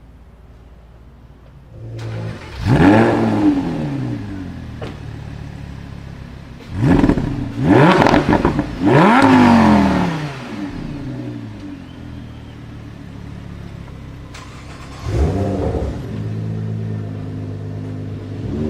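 A high-performance car engine revved in sharp throttle blips, each sweeping up in pitch and dropping back, with a steady idle between: one blip about three seconds in, a quick run of three around the middle, and another near the end.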